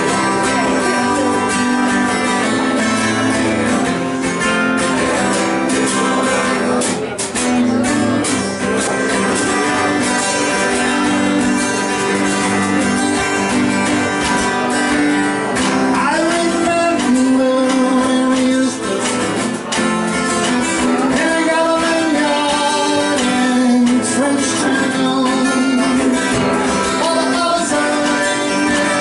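Live band music: an acoustic guitar strummed steadily, backed by a drum kit.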